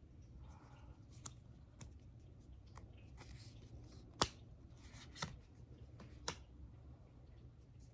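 Faint handling of oracle cards as they are flipped one by one: soft sliding with a few light taps and clicks, the sharpest about four seconds in.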